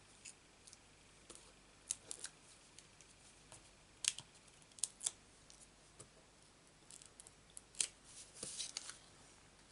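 Fingernails picking and peeling the paper backings off small foam adhesive dots: faint, scattered clicks and scratches, the sharpest about four to five seconds in and again near eight seconds.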